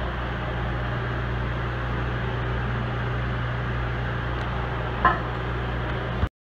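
A machine running steadily with a low hum and even noise above it. One short knock about five seconds in, and the sound cuts off suddenly just before the end.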